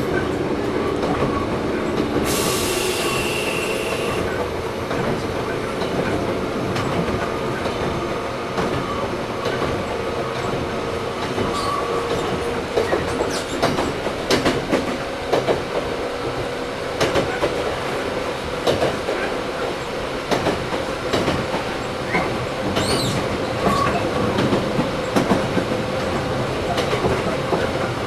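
Interior running sound of a Toyohashi Railway 1800 series (ex-Tokyu 7200 series) resistance-control electric train, motor car Mo 1854: a steady drone with motor and gear hum, with air conditioning running. There is a brief hiss about two seconds in, and from about twelve seconds in the wheels clack over rail joints.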